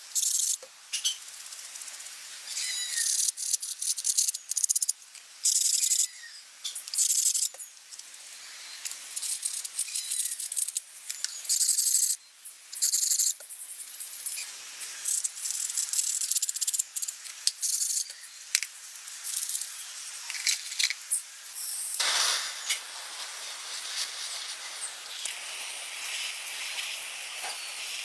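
Hissing spray in repeated short bursts, each starting and stopping sharply. About three-quarters of the way through comes a louder, fuller burst, followed by a steadier hiss.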